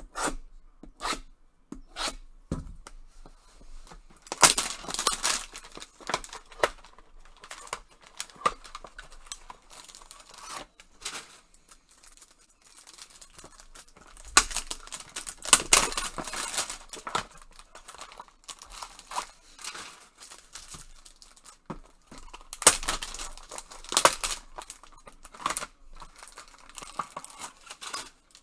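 Trading card packs being torn open: three longer ripping, crinkling stretches of wrapper, with short clicks and rustles of cards being handled in between.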